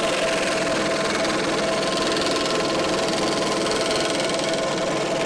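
Electric scroll saw running steadily, its blade stroking up and down as it cuts a curved line through a wooden board.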